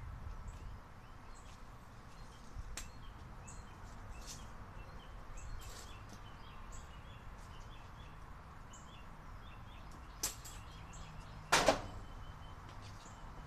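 Quiet background with scattered short bird chirps. There is a click about ten seconds in and a sharper knock about a second later, the loudest sound.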